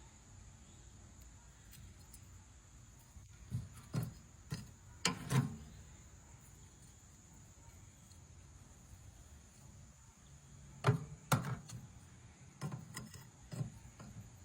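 A steady, faint, high insect-like drone, broken twice by a handful of sharp knocks and clatters: one cluster a few seconds in, another near the end.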